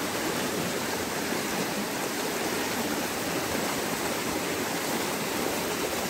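Shallow stream rushing and splashing over a small rocky drop: a steady rush of water.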